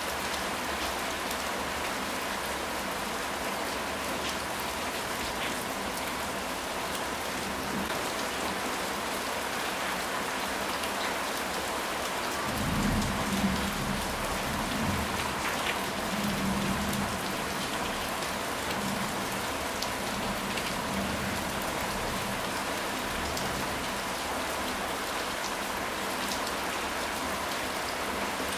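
Steady rain falling, an even hiss sprinkled with small drop ticks. About twelve seconds in, a low rumble of thunder swells and rolls on for several seconds before fading back under the rain.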